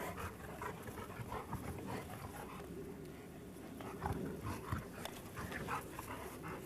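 A dog panting in short, uneven breaths.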